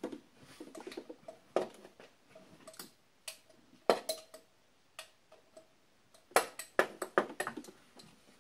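Scattered sharp metallic clicks and clinks of a hand tool against bolts and brackets in a car's engine bay while working at a stubborn bolt, with a quick run of clinks about six seconds in.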